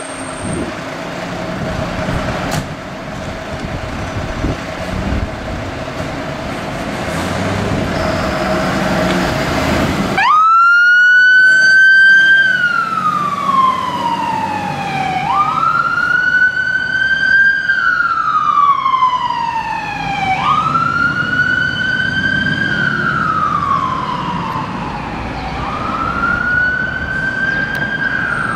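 Volvo FL fire engine's diesel engine pulling away, then about ten seconds in its siren comes on in a slow wail, rising quickly and falling away about every five seconds.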